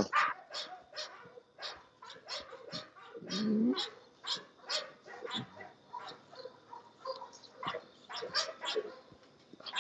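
Bulldog puppies at a wire pen making many short, quick barks and whines, several a second.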